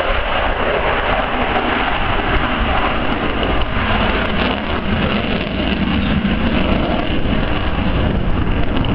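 Jet noise from the Avro Vulcan's four Olympus turbojets as the delta-wing bomber flies its display, heard as a loud, steady rushing sound.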